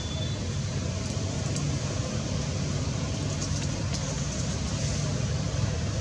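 Steady low background rumble, with a few faint ticks about a second in and again around the middle.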